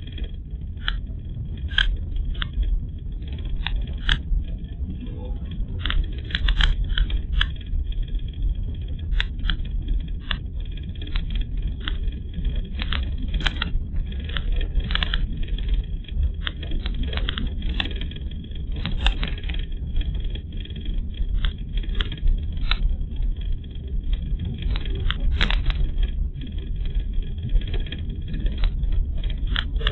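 Car driving, heard from inside the cabin: a steady low road rumble with frequent, irregular clicks and rattles.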